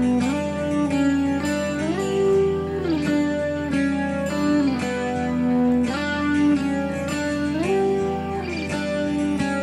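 Background music led by a guitar, its notes sliding up and down in pitch.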